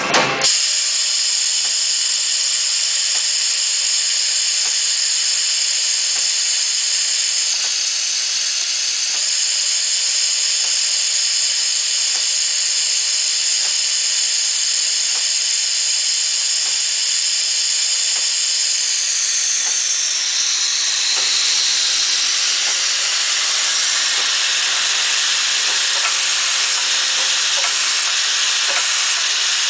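Mechanical spring coiler and automated spring grinding line running: a steady hiss with high whining tones. About two-thirds through, the whine slides down in pitch and fades, leaving the hiss with faint light ticks.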